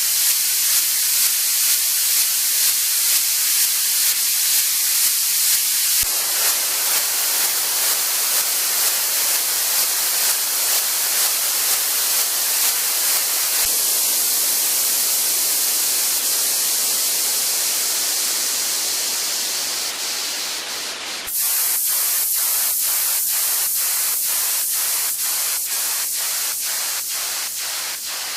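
Synthesized white-noise samples for dance-music production, one after another: first a thin, high hiss pulsing about twice a second, then about six seconds in a fuller, steady hiss that slowly dies down, then near the end a new hiss chopped in a regular rhythm about twice a second.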